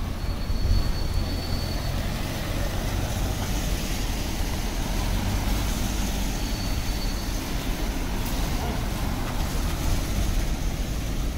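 Steady outdoor city street noise, mostly a low rumble like traffic, with a faint thin high tone twice.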